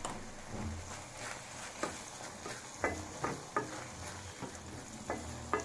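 Onion-tomato masala being stirred and sautéed in a kadai with a spoon, which knocks against the pan about eight times at irregular intervals, over a faint sizzle.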